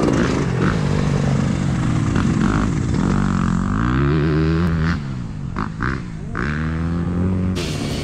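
Yamaha YZ250F motocross bike's single-cylinder four-stroke engine revving as it is ridden round a dirt track. The pitch climbs and falls through the gears, the throttle is shut abruptly about five seconds in, blipped briefly twice, then opened again.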